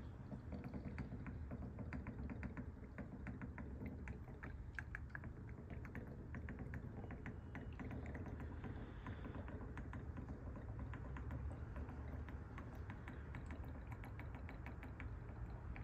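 Faint, irregular ticking and clicking from an upturned HP ink bottle draining yellow ink into the printer's ink tank as air bubbles up into it, over a low steady hum.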